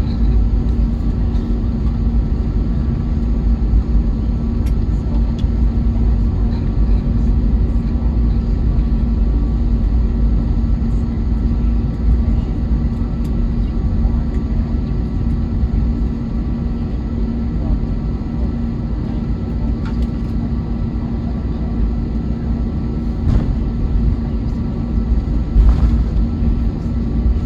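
Airbus A321neo cabin noise heard from a window seat: a steady low rumble from the jet engines and the cabin air system, with a constant hum and a few faint clicks. The level holds even, with no spool-up.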